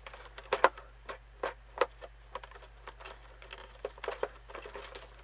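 Scissors snipping through the tape sealing a cardboard box, an irregular run of small sharp clicks and snips.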